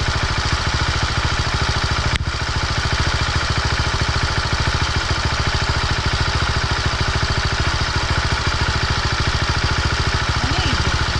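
Husqvarna motorcycle engine idling steadily in first gear with the clutch held in and being let out very gently, with no throttle. One sharp click about two seconds in.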